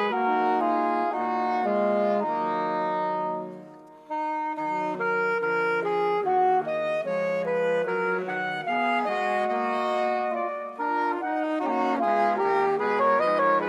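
Wind band of brass and woodwinds playing a melody in harmony. About four seconds in, a chord dies away and the band starts the next phrase.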